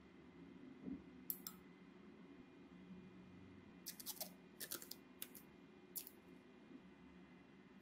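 Masking tape pulled off its roll in a few short crackling rips about four to five seconds in, then a piece torn off about six seconds in, with an earlier brief rasp just over a second in. A faint steady hum runs underneath.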